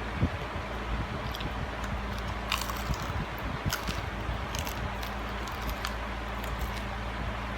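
Crunching bites and chewing on crispy fried chicken, with sharp crackles every second or so, over a steady low hum.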